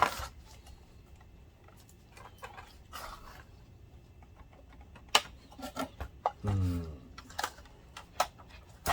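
Scattered light clicks and knocks of plastic and metal projector parts and screws being handled during disassembly, mostly in the second half. A short low vocal sound comes about six and a half seconds in.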